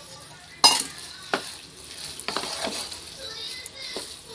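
Curd rice being stirred in a pot with a spoon: soft wet mixing noise with a few clicks of the spoon against the pot, the sharpest about half a second in.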